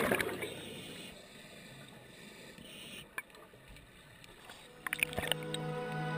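Scuba regulator exhaust bubbles rushing past an underwater action camera, fading out at the start. Muffled underwater noise with a few sharp clicks follows, and background music comes back in about five seconds in.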